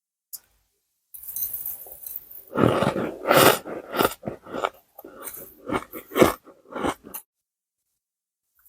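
Ice being bitten and crunched between the teeth close to the microphone: after a second of quiet comes a run of loud, dense crunching, then a string of shorter sharp cracks that stop about a second and a half before the end.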